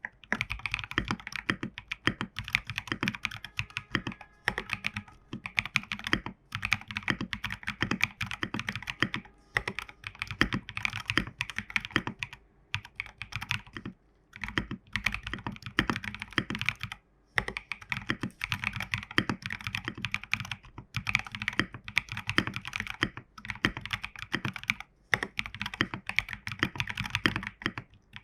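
Steady typing on a Geonworks Frog WKL mechanical keyboard with stock Prevail Epsilon tactile switches and MT3 keycaps. Runs of quick keystrokes come in bursts, with brief pauses every few seconds.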